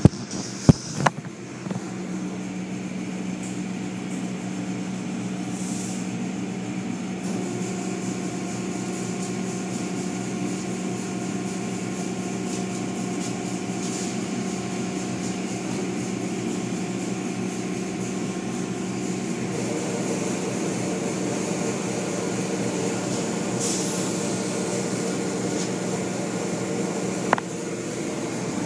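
Automatic car wash heard from inside the car: a steady hum of the wash machinery, with cloth strips and spray washing over the car. There are a couple of sharp knocks about a second in and another near the end.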